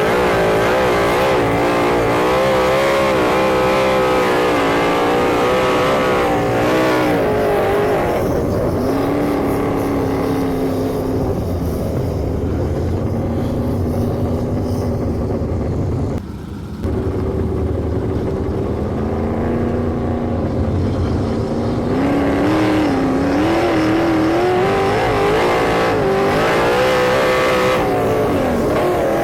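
Sprint car engines running hard around an oval track, their pitch rising and falling as they go through the turns. The pitch drops lower and steadier through the middle, with a brief dip in loudness about sixteen seconds in, then climbs again near the end.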